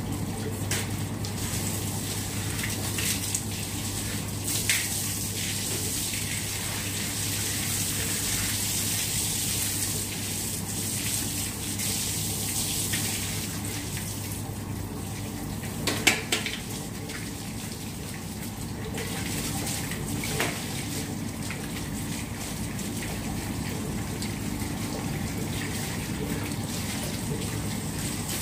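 Water spraying from a garden hose onto the walls and paving, a steady hiss with a few sharp knocks, the loudest about two-thirds of the way in. A steady low hum runs underneath.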